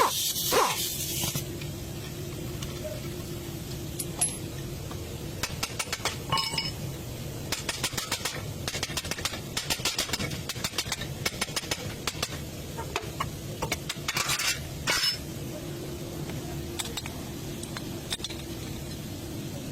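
Metal tools and parts clinking and rattling: a dense run of quick clicks with a few ringing metal taps from about five to fifteen seconds in, over a low steady hum.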